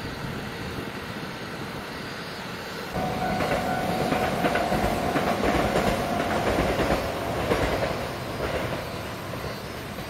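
JR West 227 series electric multiple unit passing close by, its wheels clacking over the rail joints with a steady whine above. The sound gets suddenly louder about three seconds in and fades again near the end.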